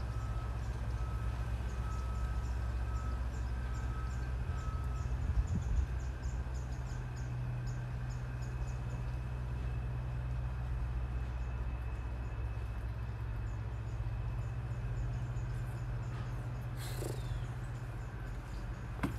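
Birds chirping faintly over a steady low hum, with a brief bump about five and a half seconds in.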